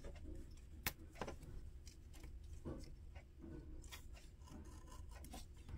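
Faint, scattered clicks and paper rustles as a small paper sticker is lifted and pressed onto a planner page with a pointed craft tool, over a low steady room hum.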